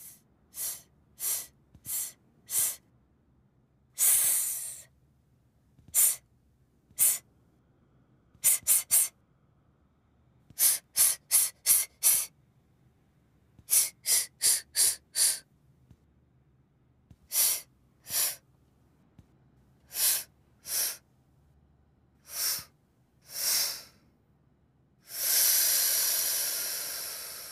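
Cartoon letter S voicing its letter sound as a string of short 'sss' hisses, some single and some in quick runs of four to six, ending in one long hiss.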